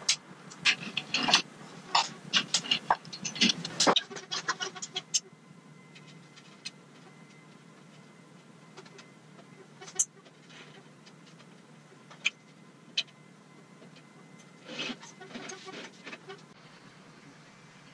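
Clicks, taps and knocks of hands working on a hanging LED tube light fixture: a dense run of sharp clicks in the first four seconds, a few single clicks in the middle, and another short cluster near the end.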